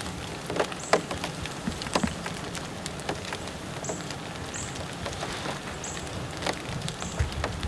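Light rain pattering on leaf litter, with a steady hiss and scattered sharp drips and ticks. A few short, faint high peeps recur every second or so.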